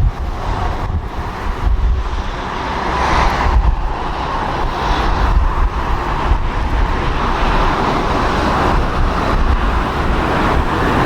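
Strong gusty wind buffeting the microphone: a heavy low rumble under a rushing noise that swells and eases with the gusts.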